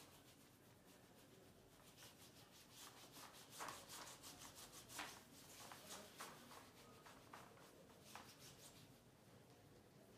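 Cloth rubbing over a marker-drawn chart, wiping the drawing off in a series of short strokes; faint.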